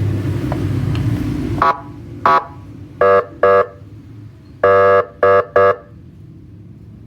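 A CJB 200-watt electronic siren gives seven short, loud horn blasts in uneven groups, the fifth a little longer. A vehicle engine runs over the first second and a half, then drops back.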